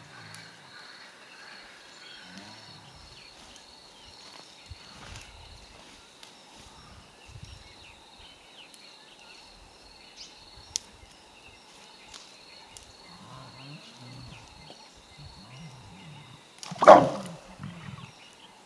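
Lions mating: one loud, short snarl about a second before the end as the pair breaks apart. Under it a faint, steady, high-pitched pulsing drone.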